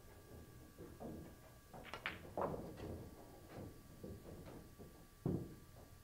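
Pool shot: a sharp click of cue on cue ball about two seconds in, then billiard balls knocking together and off cushions, with a heavier thud about five seconds in.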